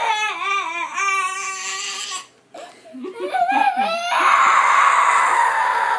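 A young girl crying loudly in a tantrum, with high, wavering wails. She breaks briefly for breath about two seconds in, then lets out a long, rougher cry over the last two seconds.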